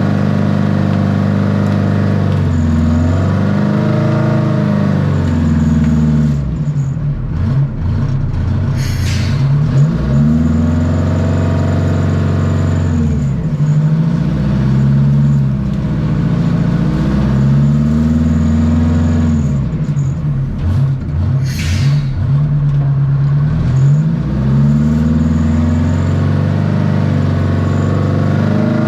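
Wheel dozer's diesel engine working, its pitch repeatedly rising and falling as it is revved and loaded. Two short hisses sound, about a third of the way in and again near three-quarters of the way through.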